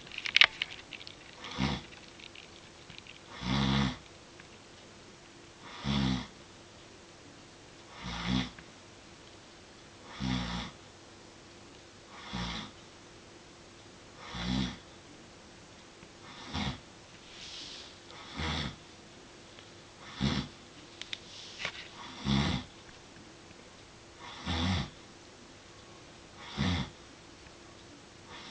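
Snoring in a slow, regular rhythm, one snore about every two seconds, with a faint steady hum underneath.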